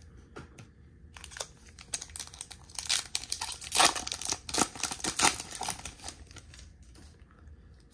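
Foil wrapper of a Topps baseball card pack being torn open and crinkled by hand: a run of sharp crackles and rips, loudest in the middle, thinning to faint rustling near the end.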